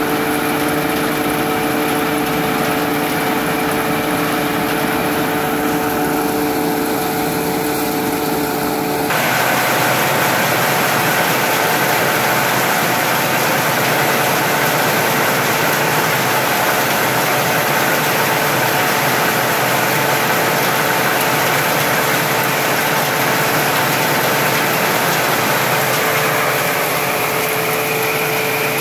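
Engine-driven threshing machine running steadily while threshing Job's tears, a loud constant machine noise with a steady hum. Its tone shifts abruptly about nine seconds in.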